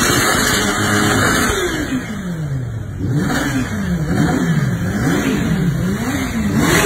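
Kawasaki H2's supercharged inline-four engine revving hard in a stationary burnout, the rear tyre spinning on the paving. After about a second and a half the revs fall, then it is blipped up and down about once a second, and the revs climb and hold high again near the end.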